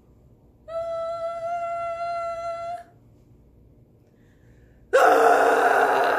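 A woman's voice holds one steady high note for about two seconds. After a short pause she lets out a much louder open-mouthed 'ahh' for about a second and a half. Both are voiced close over a plastic-wrap drum to set it vibrating.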